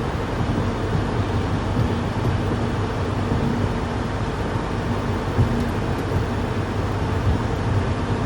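Steady road and wind noise inside a moving car, with a low engine and tyre drone underneath.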